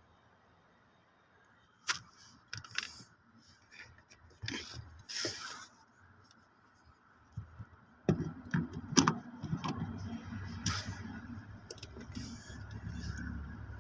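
A few sharp clicks and knocks, then about eight seconds in a diesel pickup's engine starts being cranked over by the starter, a steady low rumble that keeps going without the engine catching, the crank-but-no-start fault.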